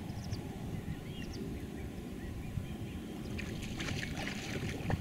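Wind rumbling on the microphone. From about three seconds in, water splashes and sloshes as a person wades through shallow floodwater over mud.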